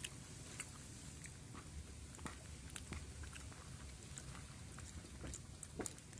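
Faint close-up chewing and mouth sounds of a person eating rice and vegetables, with scattered soft clicks of a metal spoon in a plastic bowl.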